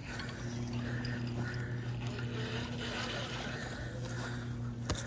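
Handling noise of a fishing rod and reel: intermittent scraping and rubbing, with one sharp click near the end. A steady low hum runs underneath.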